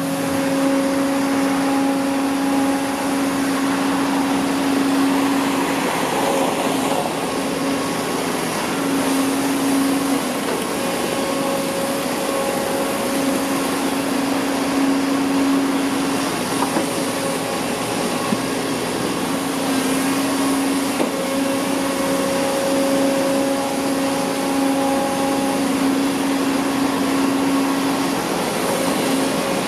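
Kobelco SK140 hydraulic excavator's diesel engine running under load as it digs and swings soil into a dump truck, with a steady machine noise and a humming whine that comes and goes every few seconds as the machine works.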